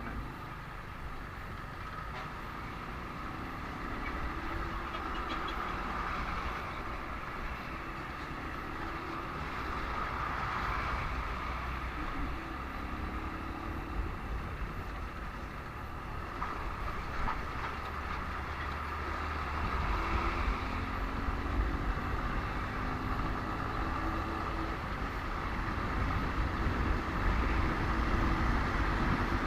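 Motorcycle riding in slow, congested highway traffic: the bike's engine rising and falling in pitch with the throttle, over the steady noise of surrounding trucks and cars. A low rumble grows louder about two-thirds of the way through.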